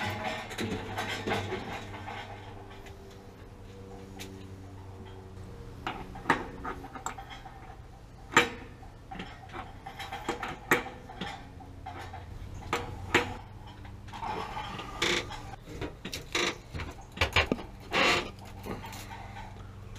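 Irregular clanks, clicks and knocks of a sheet-metal flue pipe being handled and fitted, over a steady low hum.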